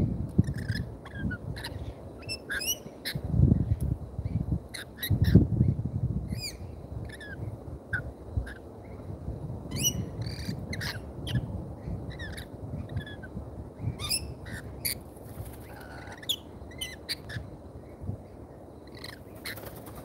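Rainbow lorikeets giving many short, shrill chirps and squawks, scattered irregularly throughout. Wind rumbles on the microphone in gusts during the first few seconds, and near the end there is a brief flurry of wingbeats as a pigeon lands.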